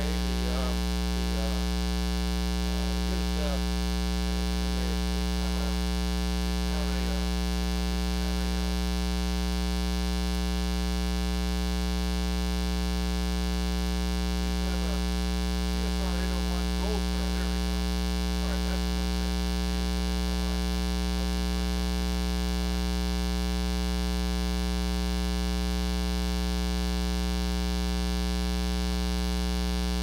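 Steady 60 Hz mains hum with a buzz of many overtones, induced into the recording by a ground loop from running the camera off its AC adapter.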